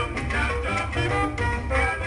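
Colombian coastal dance music in the cumbia style playing, with a pulsing bass line under held melodic notes.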